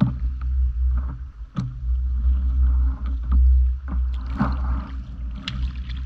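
Steady low wind rumble on the microphone over shallow lapping water, with a few small sharp clicks and splashes as a fish is cleaned by hand in the shallows.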